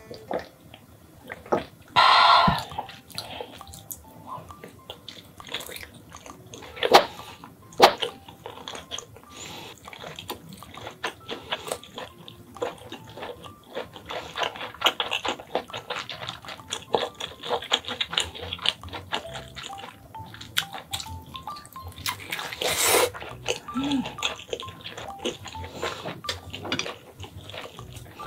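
Close-miked eating sounds: a loud swallow of drink about two seconds in, then wet chewing and lip smacking of a cheese sausage, with many small mouth clicks and a few sharper louder clicks.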